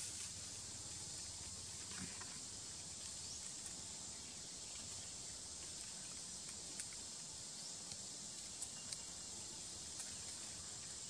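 Steady high-pitched drone of insects, with a few faint sharp clicks scattered through.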